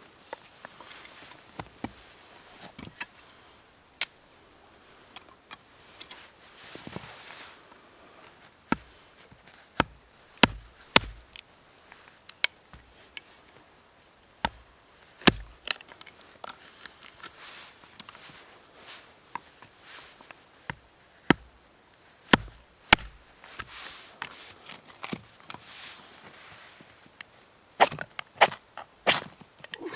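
Chopping with a blade: a series of irregular sharp knocks, some loud and some soft, with pauses of a second or more between bursts.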